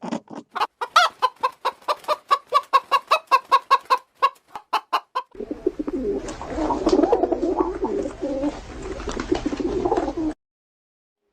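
Birds calling, pigeons or chickens: a quick series of short repeated notes, about five a second, for the first five seconds, then a denser flock chorus over a low hum that cuts off suddenly about a second before the end.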